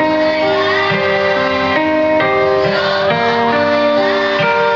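Children's choir singing a melody in held notes, with guitar accompaniment.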